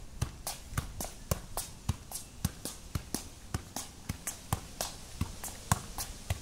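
Football being juggled with the feet on concrete: a steady run of dull thuds as the ball is kicked up again and again, about four touches a second, some louder than others.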